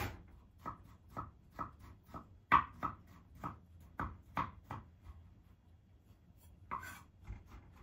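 Kitchen knife chopping carrot on a cutting board: a run of short, sharp knocks about two a second, pausing about five seconds in, with one more knock near the end.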